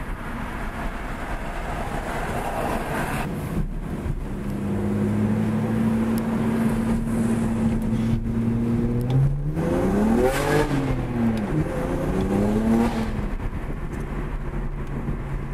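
BMW 335i's turbocharged straight-six with a 335is exhaust and AA downpipes, heard from inside the cabin while driving: a steady exhaust drone while cruising, then, about nine seconds in, the engine revs up under acceleration with several quick rises and falls in pitch before it settles back to a steady drone near the end.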